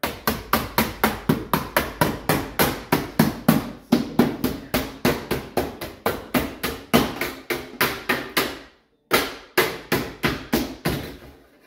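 A meat tenderizer mallet pounding a camper's ribbed metal siding flat: rapid blows, about four a second, each ringing briefly, with a short break about three-quarters of the way through.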